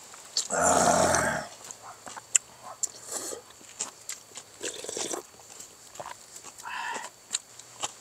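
A person slurping cold soybean noodle soup (kongguksu) from a bowl: one loud slurp of about a second, then a few shorter, quieter slurps, with light clicks of chopsticks and utensils against the bowls.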